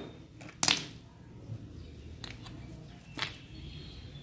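A few short, sharp knocks and scrapes of a block of ice against a plastic plant pot as it is set into the soil. The loudest comes about two-thirds of a second in and another a little after three seconds.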